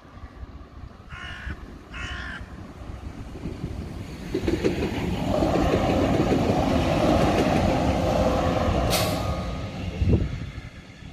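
Stuttgart Stadtbahn light-rail car passing over a level crossing: its running noise on the rails builds about four seconds in, stays loud for several seconds, then fades, with a brief sharp high sound and a thump near the end. Early on a bird caws twice.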